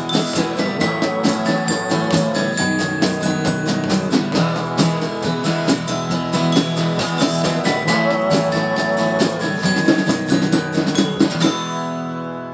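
Band playing with strummed acoustic guitars and light percussion. The strumming stops about a second before the end and the closing chord rings out and fades.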